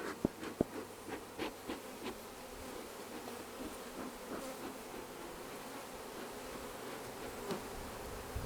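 Honeybees buzzing in a dense mass around an opened nuc box, a steady drone with a wavering pitch from a disturbed colony. A few sharp clicks or knocks come in the first two seconds.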